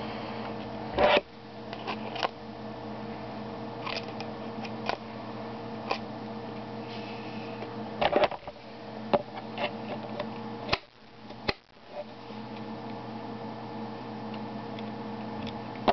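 A steady low hum with scattered sharp clicks and knocks as a pair of pliers and other small objects are picked up and set down on a desk. The loudest knocks come about a second in and again around eight seconds in.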